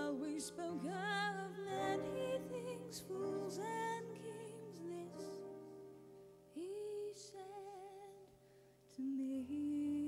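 A woman singing a slow, tender ballad with vibrato, accompanied by a keyboard playing held chords. The song grows softer in the middle and swells again near the end.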